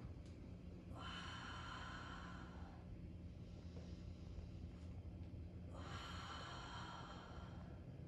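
A person breathing out hard twice during a bird dog core exercise, each exhale a long airy hiss of one to two seconds, about five seconds apart, over a steady low hum.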